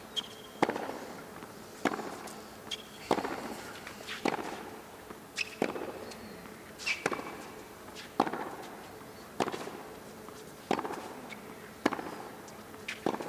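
Tennis ball struck back and forth in a long baseline rally on a hard court: sharp racket hits and ball bounces about once a second.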